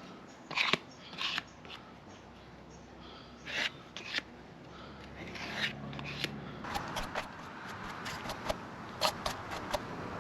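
Irregular short scraping and rubbing sounds with scattered sharp clicks: hand work against a hard surface. There is a denser run of quick clicks and scrapes in the second half.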